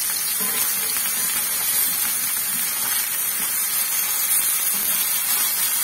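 Fish pieces frying in oil on a dosa griddle: a steady, even sizzle.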